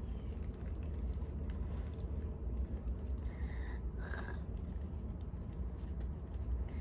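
Outdoor ambience with a steady low rumble, faint light clicks and rustles of twigs being bent and threaded into a woven basket, and two short bird calls about three and four seconds in.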